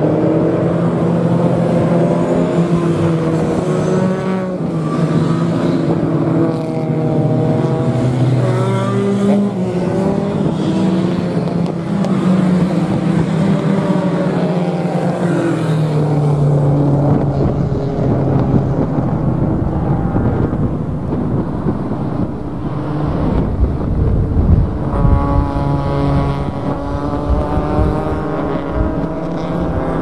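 Small-displacement vintage race car engine, heard from inside the cockpit, running hard at racing pace. Its note climbs and drops repeatedly as it works through the gears. A heavy low rumble swells in about two-thirds of the way through.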